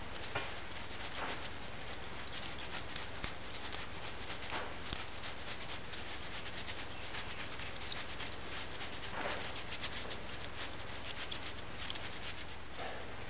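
Foundry moulding sand being sieved into a wooden casting flask: a steady patter and hiss of falling grains, with many small ticks and rustles.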